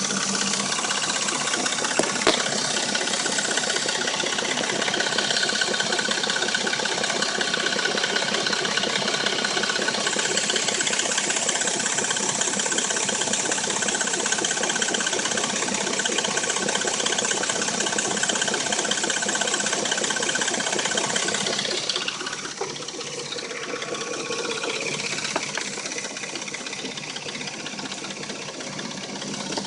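Dodge Intrepid's V6 engine running with a rattle and a knock, which the owner puts down to the timing chain; he says the noises appear only once the engine is warm. The sound drops in level about 22 seconds in.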